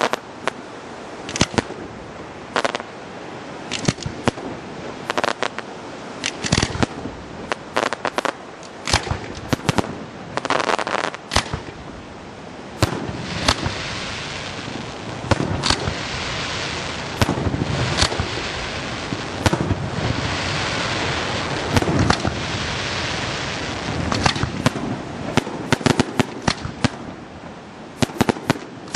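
Aerial fireworks shells bursting one after another at night, a stream of sharp bangs. Through the middle stretch a dense, steady rush of noise fills in under the bangs.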